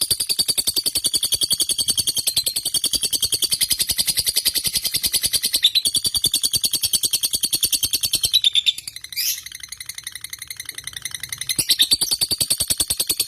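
Lovebird singing a long, rapid, unbroken chattering trill, the extended song that fighter lovebirds are kept for. It breaks off briefly with a sweeping note about nine seconds in, then resumes, quieter at first and loud again near the end.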